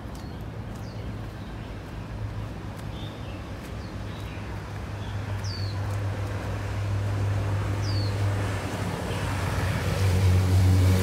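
Road traffic: a steady low engine hum that grows louder through the second half as a vehicle approaches, with a fuller engine tone near the end. Small birds give several short, falling chirps over it.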